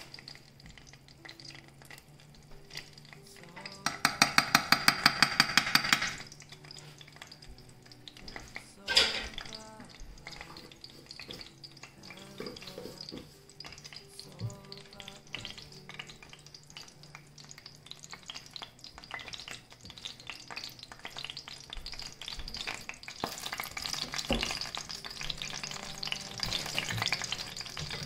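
Butter and oil sizzling and crackling in a hot frying pan, the crackle growing louder near the end. About four seconds in, a metal spoon clinks rapidly against the pan for about two seconds, stirring the butter into the oil, and there is a single knock a few seconds later.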